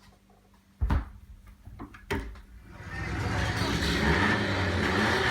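A thump about a second in, a click, then from about three seconds a racing sports-car engine comes in and runs, growing louder and then holding steady.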